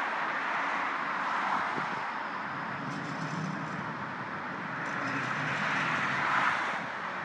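Steady hiss of vehicle traffic, from trams and cars moving past.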